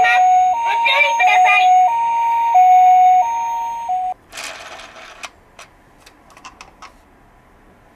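Toy ambulance's two-tone hi-lo siren (the Japanese 'pee-po' pattern), alternating between two pitches about every two-thirds of a second, with a voice briefly over it at the start. The siren cuts off about four seconds in, followed by a short rattle and a few light clicks.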